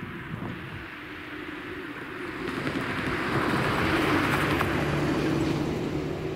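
A car driving over the level crossing and passing close by, tyre and engine noise swelling to a peak about four seconds in, then fading.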